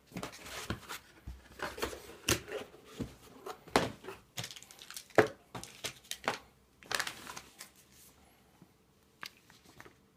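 Graphics card packaging being handled: a foam insert, cardboard box and plastic and paper rustling and scraping in irregular short bursts, with crinkling. The handling goes quieter after about seven and a half seconds, leaving a few light clicks.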